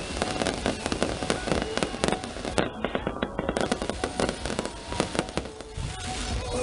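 Fireworks display: a dense run of sharp pops, bangs and crackles from bursting shells, thinning out near the end.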